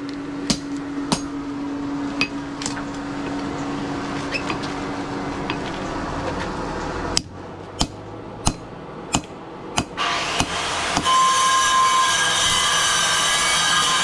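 Hand hammer blows ringing on a steel anvil as a bar is forged, sharp single strikes about one to two a second. A steady hum runs under the first half, and about ten seconds in a steady machine whirr starts up under the blows.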